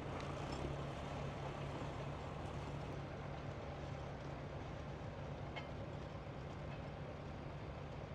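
Fendt Farmer 309 LS tractor engine running steadily under load while pulling a two-furrow plough through the ground.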